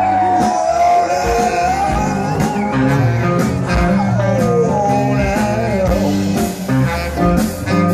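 A live blues band playing loudly through a PA: electric guitar and saxophone over bass and drums, with a held melody line that bends and slides.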